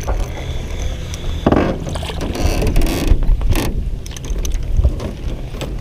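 Fishing reel being cranked in bursts, its gears clicking and rattling, the busiest stretch in the middle, over a steady low rumble of wind on the microphone.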